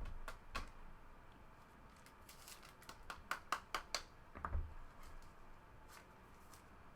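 Trading cards and their packaging being handled on a table: light clicks and taps, a quick run of them midway, and one duller thump.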